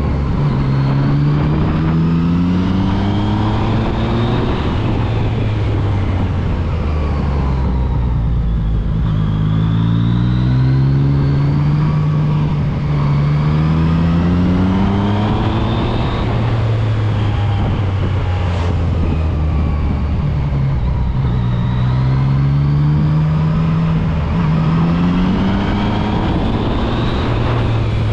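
Yamaha MT-09 SP's three-cylinder engine under way, repeatedly accelerating with a rising pitch over a few seconds and then dropping back as the rider shifts or rolls off for the bends, about six times over.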